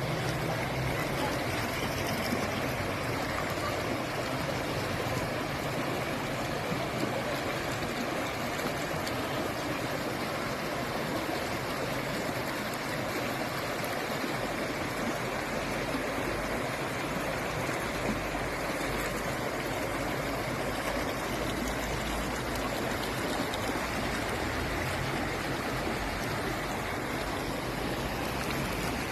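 Stream water flowing steadily, an even continuous rush of running water.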